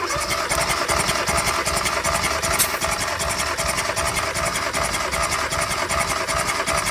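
A 2016 Kia Soul 1.6-litre four-cylinder engine being cranked over steadily by its starter motor, without starting, for a compression test on cylinder 4.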